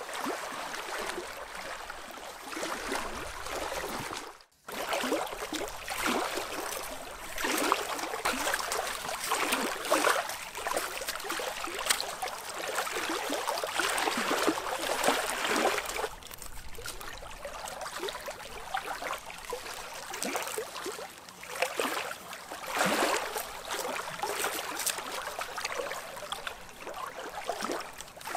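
Small waves lapping and splashing against shoreline rocks in irregular surges, with a brief drop-out about four and a half seconds in.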